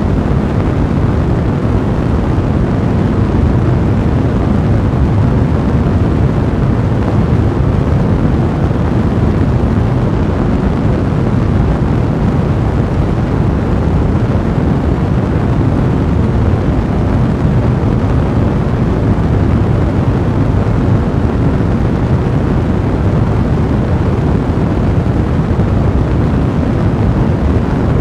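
Fireplace fire burning steadily: a loud, even, low rushing sound with a dense crackling texture and no pauses.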